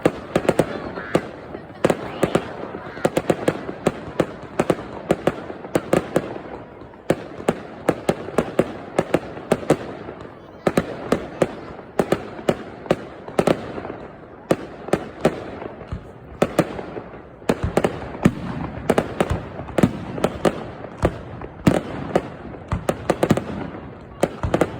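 Fireworks display: a rapid, unbroken string of sharp bangs and pops, several a second, over a steady background din.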